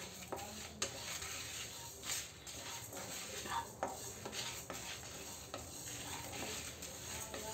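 Wooden spatula stirring coriander seeds, urad dal and dried red chillies as they roast in a nonstick kadai: a steady scraping rustle of seeds against the pan with many small clicks and a light sizzle. The spices are being roasted just until fragrant, before they change colour.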